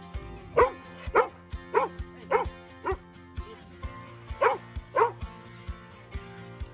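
A dog barking seven times, in a run of five quick barks and then two more, over background travel music with a steady beat.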